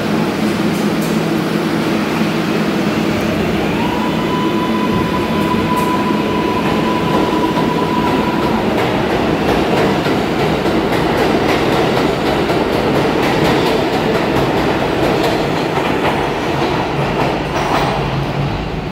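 R142A subway train pulling out of the station. A few seconds in, its traction motors whine up in pitch and hold a steady tone for several seconds over the rolling rumble of the cars. The wheels then click over the rails as the train passes and draws away.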